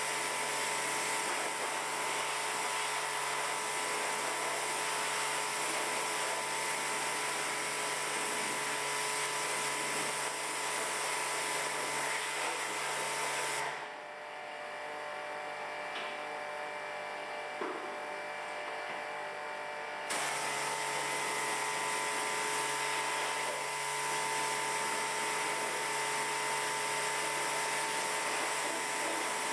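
Pressure washer running with its motor hum, its water jet spraying onto a car's engine bay. It cuts out about 14 seconds in for some six seconds, then starts again.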